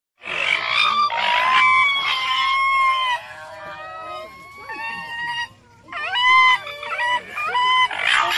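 Raccoon dogs (Nyctereutes procyonoides) giving a stream of high-pitched whining calls, several overlapping at different pitches, with harsher rasping bursts near the start and at the end.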